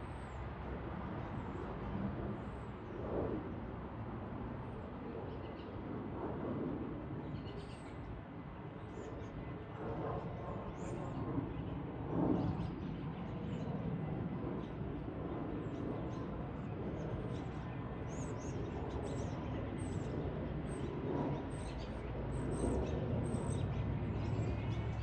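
Small birds chirping with short high calls, more often in the second half, over a steady low rumble of outdoor background noise.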